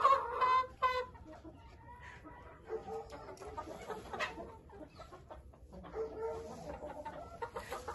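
A rooster crowing, its long held call ending about a second in, followed by fainter scattered clucks and short calls from chickens.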